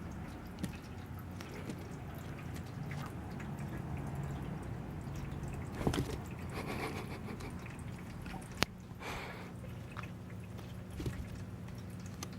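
Low, steady room hum with scattered faint clicks and rustles, and one sharp click about eight and a half seconds in.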